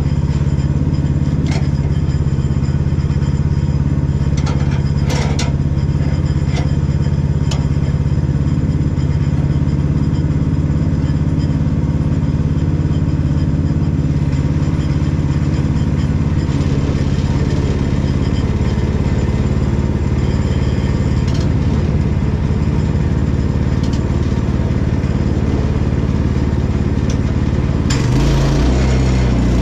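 Woodland Mills portable bandsaw mill's engine running steadily at idle, with a few sharp knocks in the first several seconds as the log is handled on the mill bed. Near the end the engine note changes and grows a little louder.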